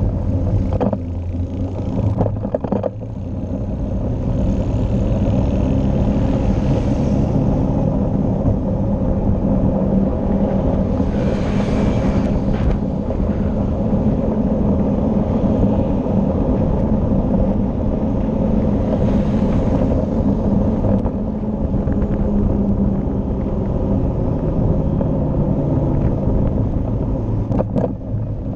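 Engine of the vehicle carrying the camera running steadily while riding along a road, with wind and tyre noise. Other vehicles pass by three times, each a brief swell of noise.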